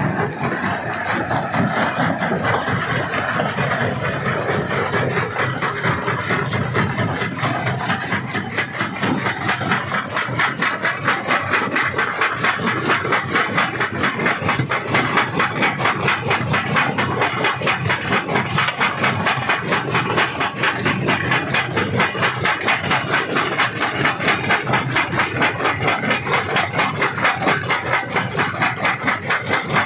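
Stone crusher running, rock being crushed with a fast, even pounding of about four beats a second over the machine's steady din.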